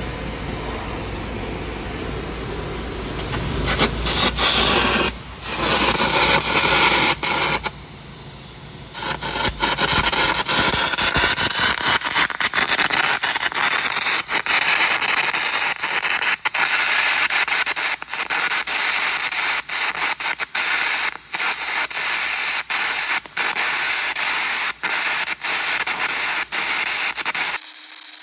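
Air carbon arc gouging on the cracked steel bosses of an excavator thumb: a loud, steady hissing crackle from the arc and its compressed-air jet, broken by many short gaps.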